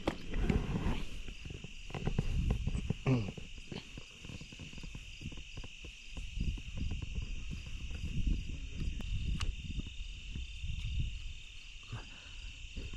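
A steady chorus of crickets trilling high and unbroken, over irregular low thumps and rustling from gear being handled and the net being lifted.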